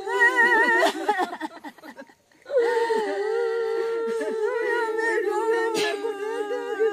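A woman wailing in grief: a long, drawn-out crying voice that trembles at first, breaks off about two seconds in, then resumes as a long held wail of mourning.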